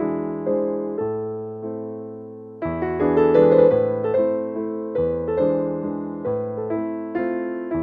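Background piano music: a slow melody over soft chords, each note fading after it is struck, growing louder a little under three seconds in.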